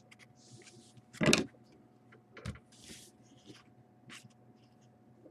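Trading cards being handled over a tabletop: short papery slides and swishes as cards are flipped and laid down, with a louder knock about a second in and a smaller one about two and a half seconds in.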